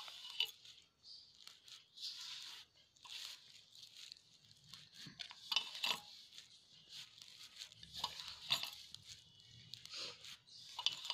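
Hands kneading crumbly maida dough, flour rubbed with ghee and being brought together with a little water, making irregular rustling strokes about one a second.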